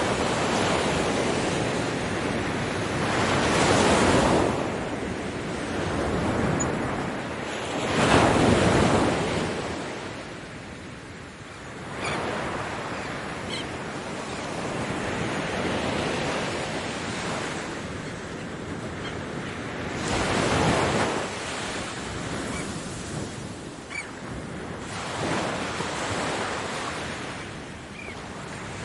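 Ocean waves breaking and washing up a beach, the surf swelling and easing every few seconds, with the biggest breakers about four, eight and twenty-one seconds in.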